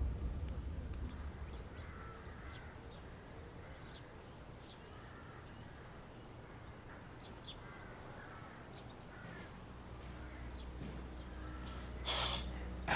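Faint bird calls scattered over a quiet background, with a brief rustling noise near the end.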